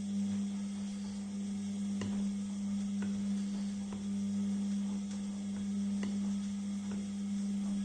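Beko 6 kg washing machine running mid-programme: a steady motor hum with faint ticks about once a second.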